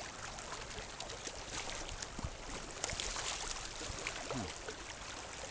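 Flowing river water heard from a kayak, steady, with many small splashes and trickling drips scattered through it.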